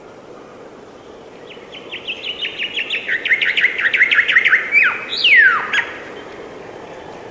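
A songbird singing one phrase: a fast run of short notes that steps down in pitch, ending in two sweeping downward notes.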